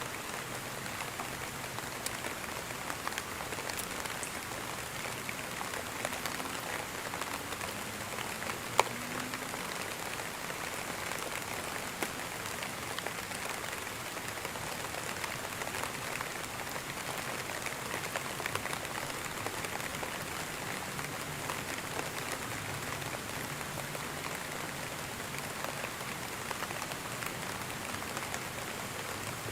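Steady rain falling on a surface: a dense, even hiss with scattered close drops ticking, and one sharp tap about nine seconds in.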